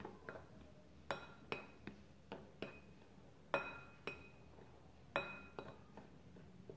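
A spoon clinking against a glass mixing bowl while stirring a dry flour mix: about a dozen irregular faint clinks, each with a brief ringing tone, the strongest about one, three and a half and five seconds in.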